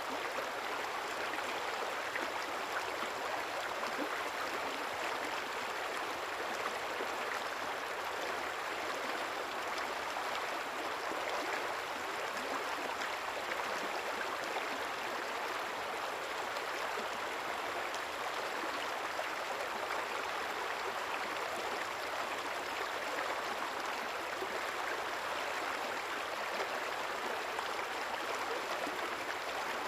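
River water flowing and burbling in a steady, even rush with no breaks.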